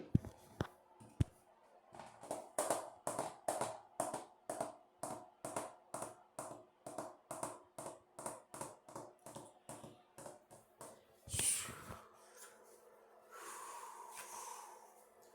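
A person imitating a train with the mouth: a fast, even run of breathy chuffs, about three a second, then a louder puff and a short held note near the end.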